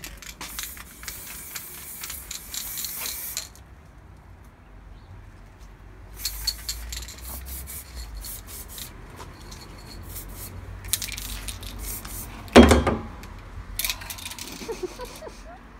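Aerosol spray-paint can hissing in several short bursts onto a scooter fork. A single loud thump comes about three-quarters of the way through.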